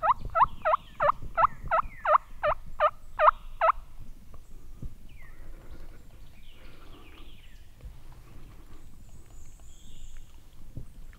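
Turkey yelping: a run of about a dozen loud yelps, roughly three a second, each sweeping down in pitch, stopping about four seconds in.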